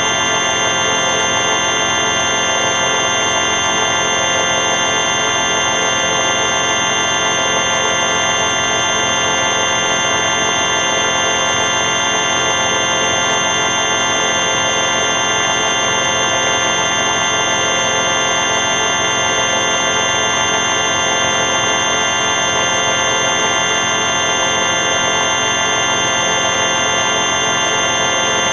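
The 4ormulator v5 synthetic sound effect: a loud, harsh electronic buzzing drone made of many steady tones held together. A faint wobble recurs every second or two.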